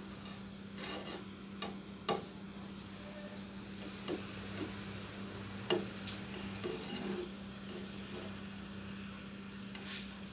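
Scattered small clicks and rubbing of fingers handling a 6283 amplifier IC and fitting resistor leads onto its pins, the sharpest clicks about two and six seconds in, over a steady low hum.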